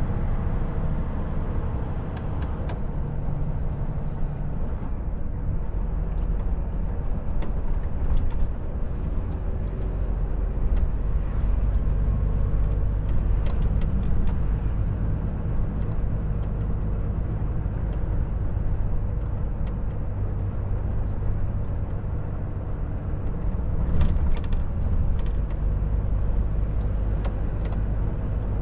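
Volvo FH 460 lorry under way: its 13-litre six-cylinder diesel engine runs in a steady low drone over tyre and road noise, with scattered short clicks and ticks.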